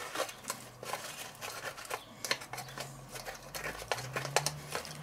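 A spoon scraping and clicking against the inside of a metal spice tin in quick, irregular strokes, working the seasoning loose.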